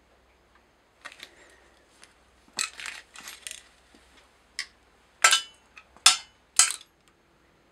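Small metal parts and tools clinking and clicking as they are handled, in a scattered run of short sharp clicks, with the three loudest in the last couple of seconds.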